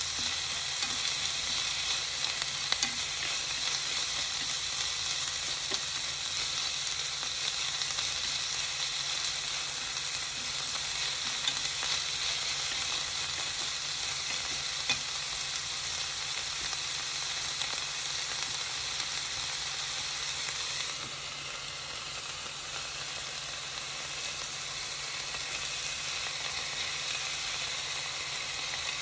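Chopped onion and bell peppers sizzling as they fry in a pot, with the occasional scrape and tap of a wooden spatula stirring them. The sizzle drops a little about three-quarters of the way through.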